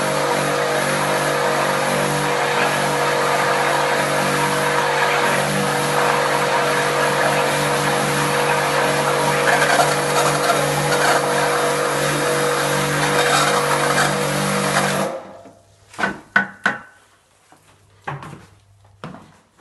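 Drain-clearing machine working its line down a toilet trap, a motor running steadily with the water churning in the pan. It cuts off suddenly about fifteen seconds in, leaving only a few short knocks and clatters.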